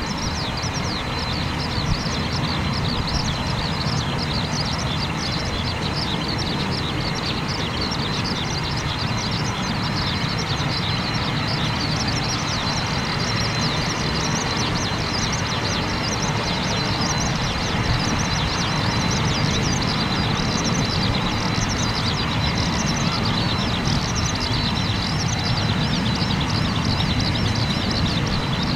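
Boeing 767's two turbofan engines running at taxi idle: a steady low rumble with a steady high tone, slowly growing louder as the jet taxis closer. Rapid high chirping runs over it throughout.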